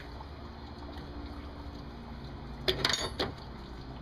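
A short burst of metallic clicking and clatter about three seconds in, from the serpentine belt tensioner and the wrench on it as the belt is lifted off a pulley, over a steady low hum.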